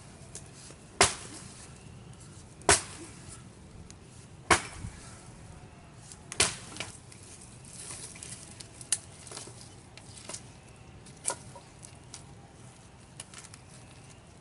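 Chopping tool hacking into brush-pile wood: four loud, sharp chops a little under two seconds apart, then a few lighter cracks and snaps of branches in the second half.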